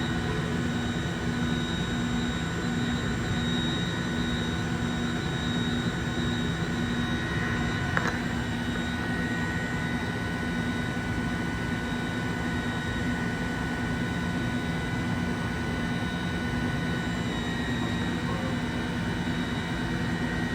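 Okuma Genos M560-V vertical machining center's spindle running free at about 10,000 RPM: a steady whine of several held tones over a low machine hum, with one faint tick about eight seconds in.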